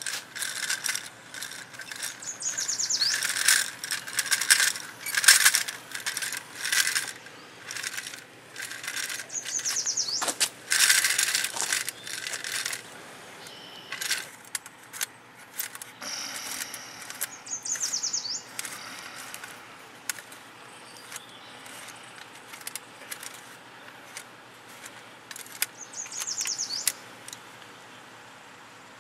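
Antique wooden pull toy on a tin base rattling and clattering in uneven bursts as it is pulled along concrete, its wooden wheels turning a crank that jerks the wooden legs back and forth. From about 13 seconds in the rattles are fewer and quieter as the toy is handled.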